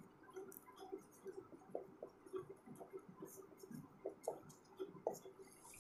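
Faint, irregular scratches and light taps of a pen or marker drawing on a board.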